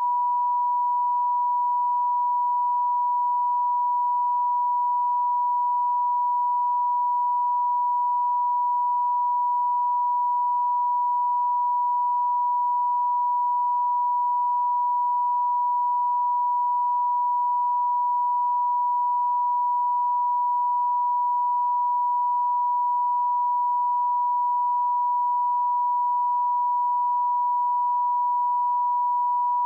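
A pure 975 Hz sine-wave test tone, held steady at one pitch and level.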